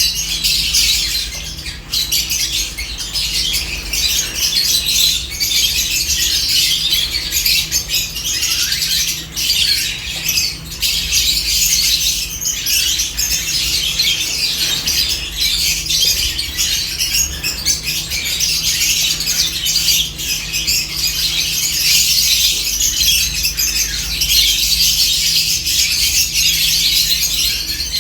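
Flock of lovebirds chattering nonstop: dense, overlapping high-pitched chirps and squawks, with a few sharp clicks here and there.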